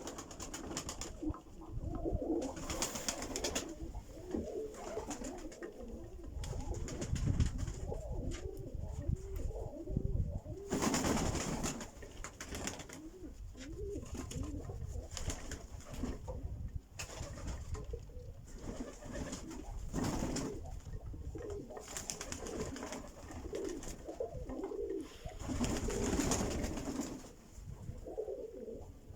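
Several birds making low cooing calls, many short rising and falling coos overlapping throughout, with a few louder noisy bursts every several seconds.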